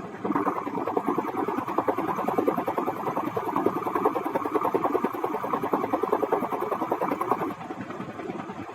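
A car engine running with a rapid, even pulsing. It eases off about two-thirds of the way through.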